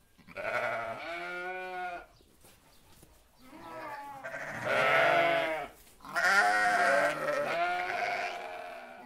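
Goat bleating: several long, wavering bleats in a row, with short pauses between them.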